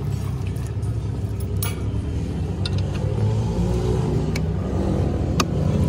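Steady low hum of an engine running, with a few short sharp metallic clicks from small engine parts being handled and fitted into an aluminium crankcase.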